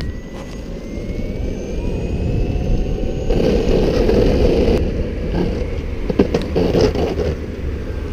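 Longboard wheels rolling over asphalt, a steady rumble with a faint rising whine in the first couple of seconds. It gets louder and rougher about three to five seconds in, and a few sharp clacks come around six to seven seconds in.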